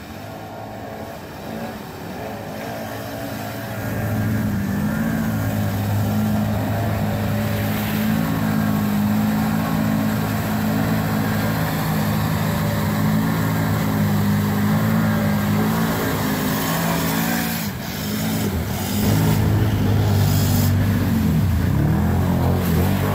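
ATV engine held at high revs while the quad churns through deep mud, building up over the first few seconds and then running steadily. It drops off briefly about three-quarters of the way through, then revs up again.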